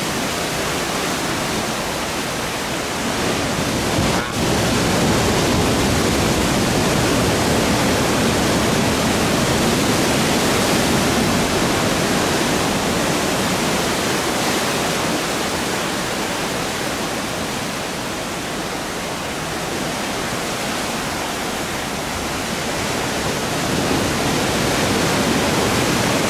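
Steady rushing noise of ocean surf, slowly swelling and easing.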